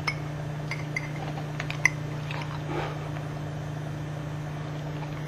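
A man eating a forkful of tater-tot casserole: a few small clicks of the fork in the first two seconds, then quiet chewing, over a steady low hum.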